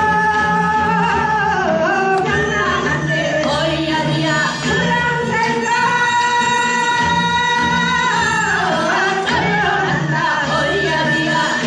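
Live music with a singing voice holding long, drawn-out notes over a steady accompaniment.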